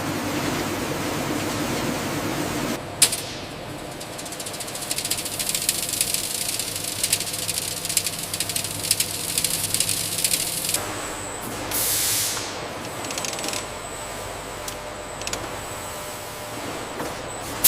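Flour-mill machinery in three stretches: first a steady rushing noise; from about three seconds in, a dense rapid clatter; from about eleven seconds, a lower steady hum with a few hissing whooshes.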